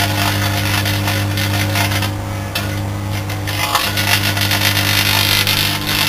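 Twin-magnetron microwave oven running flat out: its microwave oven transformers give a loud, steady deep hum, with a rough crackling hiss over it from plasma and arcing in the cavity as the light bulbs inside burn.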